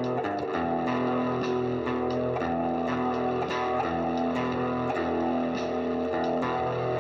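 Guitar played through a spring reverb: plucked notes and chords ringing on in a steady stream, with the reverb's wash behind them.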